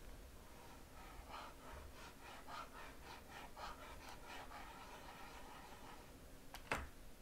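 Faint scratching of a pen dragged back and forth across a graphics tablet, in soft strokes about three a second, then a single sharp click near the end.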